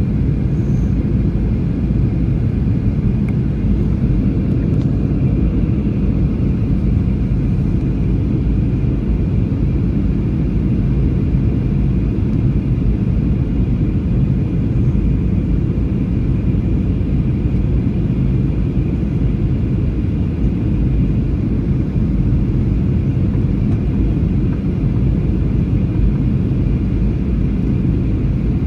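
Steady cabin noise of a jet airliner in flight: a loud, even, low rumble of engines and airflow, with a faint steady higher hum.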